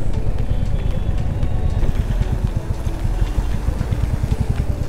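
Royal Enfield Classic 350's single-cylinder engine idling steadily, stopped in a traffic queue, with background music over it.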